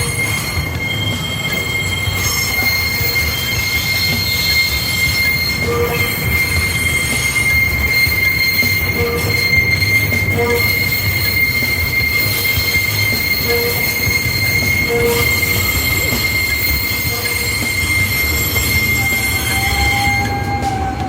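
Electric commuter train rolling slowly with a steady high-pitched squeal of its wheels on the rails, over a low running rumble.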